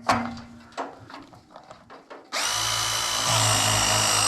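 A few light knocks and handling clicks, then a little past halfway a power drill starts and runs steadily. Its pitch steps up slightly about a second later.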